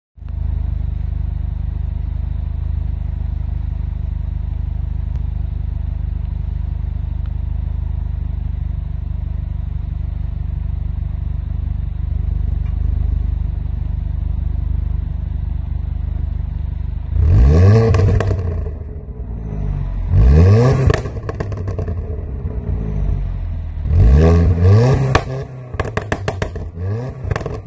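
Alfa Romeo Giulietta Quadrifoglio Verde's turbocharged four-cylinder idling steadily, then blipped three times, each rev falling away with popping and crackling from the exhaust on overrun. The crackling is an overrun burble ('Schubblubbern') programmed in by an ECU tune.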